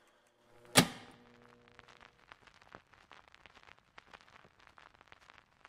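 A single sharp click about a second in, then faint, irregular crackling and popping.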